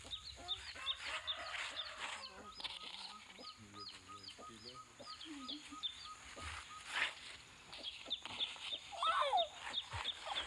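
Chickens clucking over a steady series of short high chirps, about three a second, with one louder call that rises and falls near the end.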